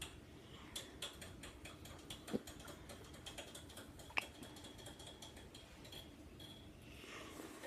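Faint clicking and smacking of someone chewing a tiny milk-chocolate frog, with two sharper ticks about two and four seconds in.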